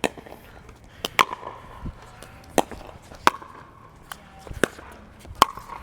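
Pickleball rally: paddles strike the plastic ball in a series of sharp pops about a second apart, some with a short hollow ring.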